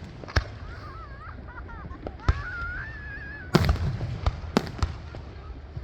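Fireworks going off: scattered sharp bangs, about half a dozen, with the loudest, a quick cluster of reports, about three and a half seconds in.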